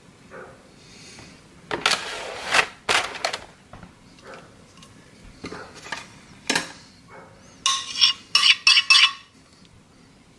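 Kitchen clatter while cheesecake batter is poured out of a blender jar: scattered knocks and short scraping bursts, then a quick run of ringing clinks about eight seconds in.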